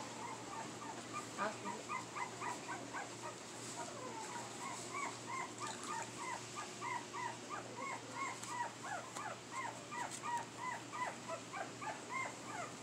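A litter of American pit bull terrier puppies whining and crying in short, high, arched squeaks, several a second and overlapping.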